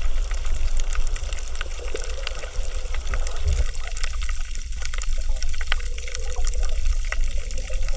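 Underwater crackle of a coral reef: many sharp, irregular clicks and pops over a low rumble of moving water. The "michi-michi" crackling is said to be the coral breathing, perhaps mixed with coral breaking as fish feed on it.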